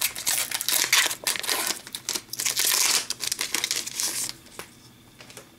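Shiny wrapper of an Upper Deck hockey card pack crinkling loudly as it is torn open and handled, stopping about four seconds in.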